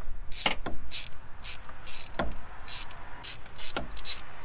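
Ratchet wrench on a spark plug socket clicking in short bursts, about two or three a second, as it backs out an old spark plug from a 2006 Mustang GT's cylinder head.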